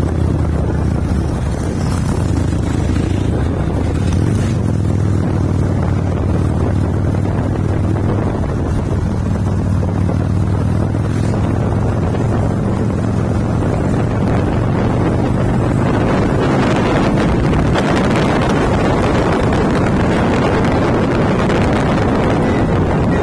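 Harley-Davidson V-twin motorcycle engine running steadily at cruising speed, heard from the rider's seat, with wind buffeting the microphone.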